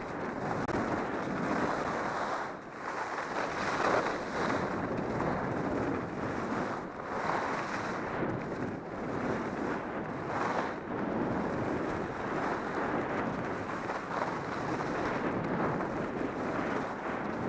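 Skis scraping and hissing over packed snow on a steady downhill run, mixed with wind rushing over the microphone. The rush swells and eases in waves.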